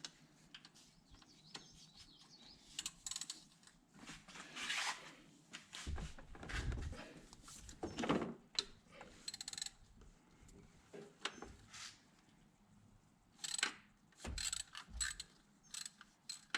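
Hand ratchet with an E12 Torx socket working the bolt of a BMW serpentine belt tensioner: irregular runs of ratchet clicks with metal tool knocks and a few dull thumps.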